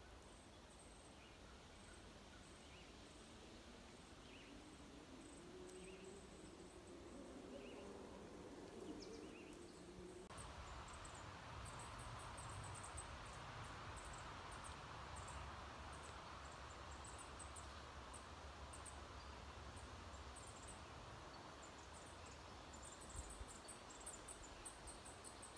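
Faint woodland ambience: insects chirping in short, high-pitched pulses over a soft hiss of wind in the trees. The hiss turns fuller suddenly about ten seconds in.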